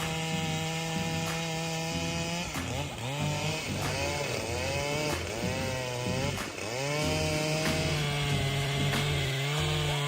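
Husqvarna 395 XP two-stroke chainsaw running at high revs in a cut. For a few seconds in the middle its pitch sags and recovers several times as the chain bogs in the wood, then it holds steady at high revs again.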